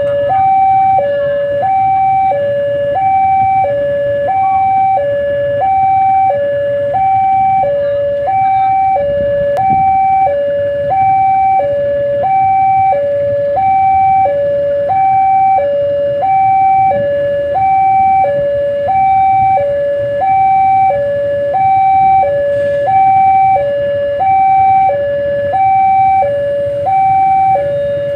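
Electronic railway level-crossing alarm sounding a steady two-tone hi-lo warning: a higher and a lower note alternating about every half second without a break, signalling that a train is approaching.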